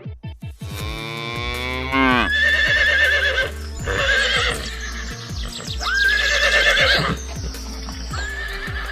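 A horse neighing several times, each whinny a high, quavering call, over background music with a steady low drone. A cow's moo falls away in the first two seconds.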